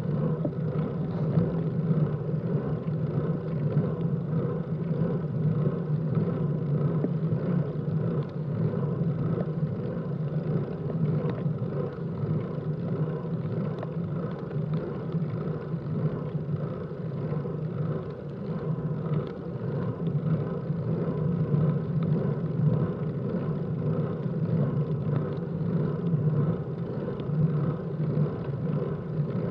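Steady rumble and hiss of a road bike climbing slowly on a wet road: wind and tyre noise picked up by the rider's own camera.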